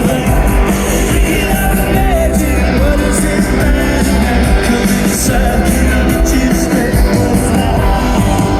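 Live rock band playing a song through a concert sound system, with singing over the band.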